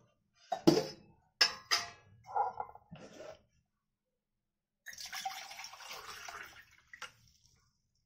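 Water poured from a steel tumbler into a hot iron kadhai of cooked masala gravy. A few sharp metal clanks and splashes come first, then a steady pour lasting about two seconds, with one click near the end.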